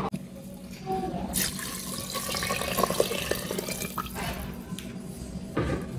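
Water poured in a steady stream into an aluminium pressure cooker over dry black beans, starting about a second and a half in and stopping shortly before the end.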